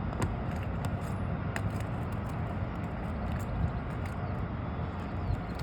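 A few sharp clicks and crackles as asphalt shingles are lifted by hand and their seal strips pop loose, over a steady low rumble.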